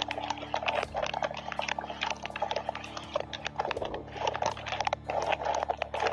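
Raindrops striking a car's windshield and roof in many quick, irregular taps over a hiss, with a steady low hum underneath.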